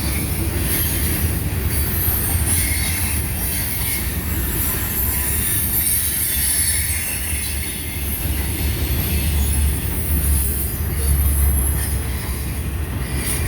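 Freight train cars rolling past close by: a steady low rumble of steel wheels on rail, with a continuous high-pitched wheel squeal over it.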